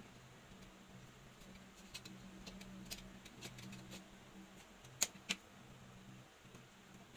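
Faint handling of a flattened PVC pipe piece and a cutter on a stone countertop: light scrapes and ticks, with two sharp clicks about five seconds in, over a low steady hum.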